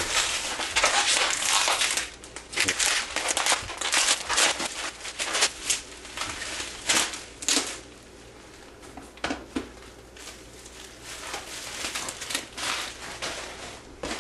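Packaging being pulled open and rummaged through: crinkling, rustling and tearing of the packing material, dense for the first couple of seconds, then in irregular bursts that thin out to occasional crackles in the second half.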